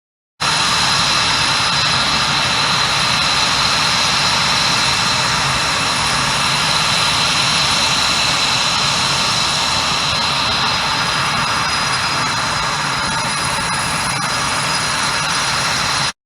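Jet aircraft engine running: a loud, steady rush with high whining tones, cutting in suddenly and cutting off suddenly near the end.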